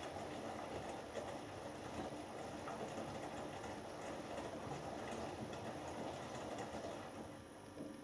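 Hoover Dynamic Next front-loading washing machine in its main wash, the drum turning and tumbling wet laundry. The drum comes to rest about seven seconds in and the sound drops away.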